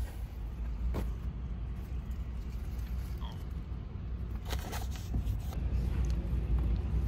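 Steady low rumble inside a van cabin, with rustling and a few sharp clicks as clothes, a face mask and plastic hangers are handled; the clicks come about a second in and again around the middle.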